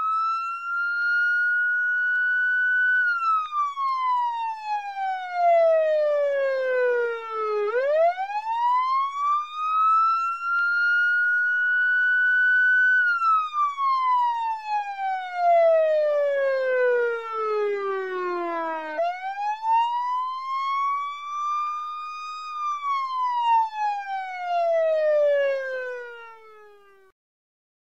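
Police siren sounding a slow wail: the pitch climbs quickly, holds high for a few seconds, then slides slowly down, over three long cycles. It fades out near the end.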